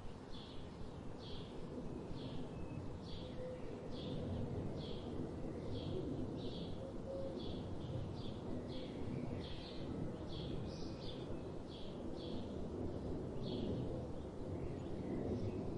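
A songbird repeating a short, high chirp in a steady series, roughly one to two notes a second, over a low background rumble of outdoor noise.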